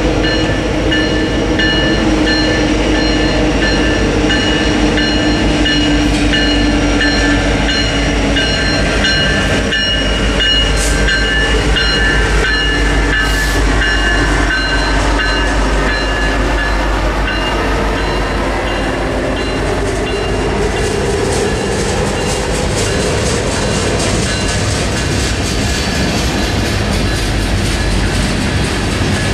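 Freight train of covered hopper cars rolling past close by: a steady rumble of steel wheels on rail with thin, high ringing tones over it. Rapid clicks of wheels over rail joints come in near the end.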